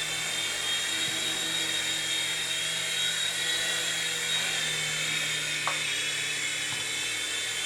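Electric rotor motors of a ToyJoy M302 four-channel toy RC helicopter in flight, whirring with a steady high whine; the pitch dips briefly near the end.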